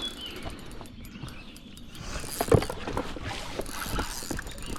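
Knocks and clatter from a small inflatable boat being paddled and handled, with water noise. The sharpest knock comes about two and a half seconds in.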